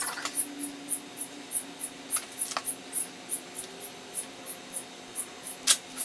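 Metal roller chain being handled and fitted over bicycle and jackshaft sprockets, with a few light metallic clicks, the clearest near the start and a second or so before the end, over a steady faint ticking about three times a second.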